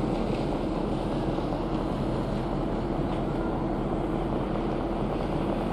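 Steady noise of a moving cruise ship heard from its open deck: wind and ship machinery, with a constant low hum.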